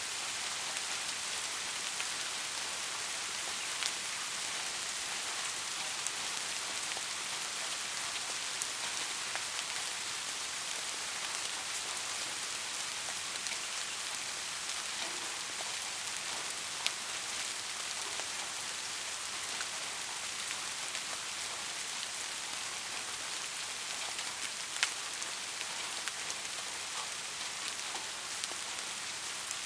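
Steady rain falling, an even hiss with scattered sharper drips of drops hitting close by.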